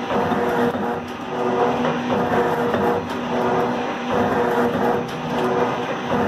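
Alba 4S metal shaper running under cut, its ram stroking back and forth about once a second as the tool planes a metal workpiece held in the vise. A steady mechanical hum rises and falls with each stroke.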